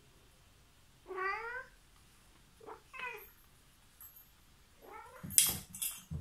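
A cat meowing three times in short rising calls. Near the end come a few sharp knocks and clicks, louder than the meows.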